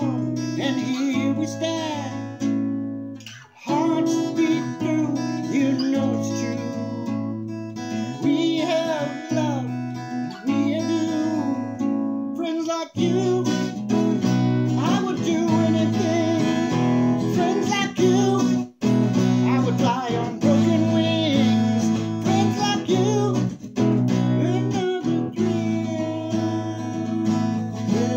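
A man singing to his own strummed acoustic guitar accompaniment. The playing pauses briefly twice, once early and once about two-thirds of the way through.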